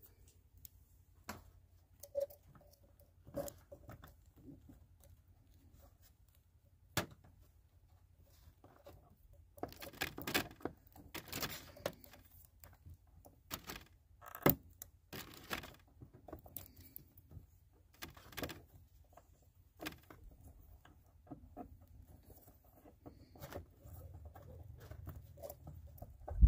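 Faint handling noises of house wiring being joined by hand: scattered small clicks and taps, with a few longer scratchy rustles around the middle, as wires are twisted together under wire connectors.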